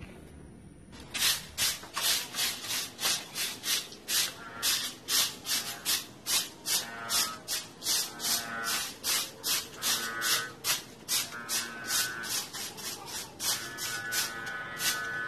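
Broom sweeping dry leaves in brisk, regular strokes, about two or three a second, starting about a second in.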